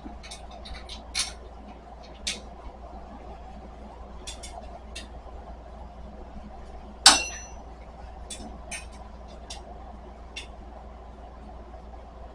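Small metal hardware and tools clinking and clicking during furniture assembly: scattered light clicks, with one loud metallic clink about seven seconds in that rings briefly.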